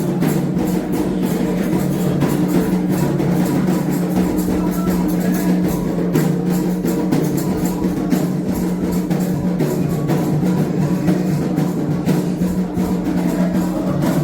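Candomblé ritual drumming: atabaque drums playing a steady, continuous toque, with a sharp struck bell or wood-like timeline pattern over it.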